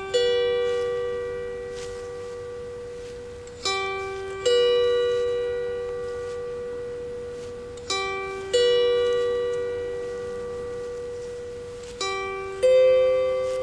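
Harp plucked slowly, a lower note then a higher one about half a second later, each left ringing out; the pair repeats about every four seconds.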